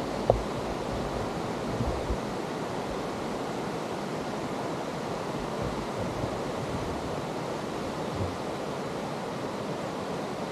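Steady rush of a mountain stream tumbling through a rocky gorge. A few low wind thumps hit the microphone in the first two seconds.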